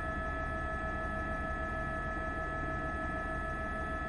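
Steady drone of a news helicopter heard from on board: a few constant whining tones over a low, fluttering rotor rumble.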